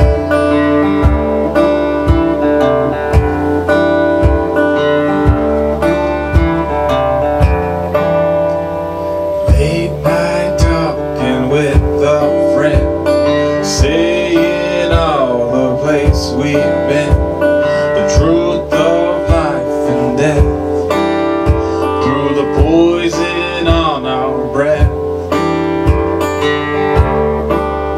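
Acoustic guitar strummed over a steady beat from a suitcase kick drum, its pedal beater thumping about once a second. A man's singing voice comes in about ten seconds in.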